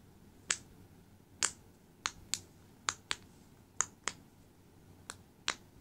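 Silicone pop-it fidget toy having its bubbles pressed one at a time, giving about ten sharp pops at an uneven pace.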